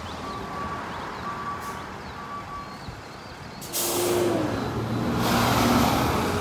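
Ambulance reversing alarm beeping about once a second over its running engine. About three and a half seconds in it gives way to a louder rush of road and wind noise as the ambulance drives past.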